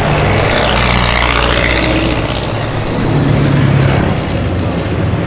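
Car engines driving past in street traffic: an old Willys jeep, then a lowered Volkswagen Brasília, with a steady low engine drone throughout.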